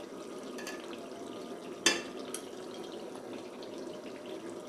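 Chicken and tomato gravy cooking in a pot with a steady low bubbling and sizzling. A metal spoon clicks sharply once about two seconds in while salt is spooned in, with a couple of fainter ticks around it.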